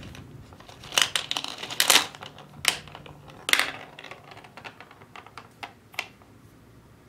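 Plastic toy gumball machine: a rattle of clicks as the dispenser is worked, then a gumball clattering down the plastic spiral ramp with a few sharp clacks and lighter ticks that fade away.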